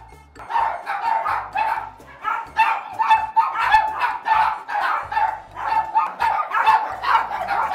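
Small dogs barking over and over in short barks, two or three a second, over quiet background music with a steady beat.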